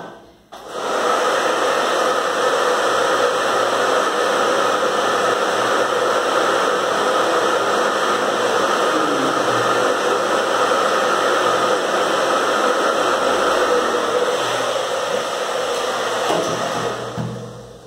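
Handheld hair dryer blowing steadily, drying freshly applied paint. It switches on about half a second in and runs down near the end.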